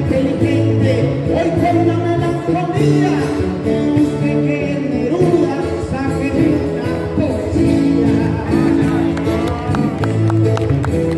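Paisa trova: improvised verses sung by male voices over a steady instrumental accompaniment, the two trovadores taking turns, the second picking up near the end.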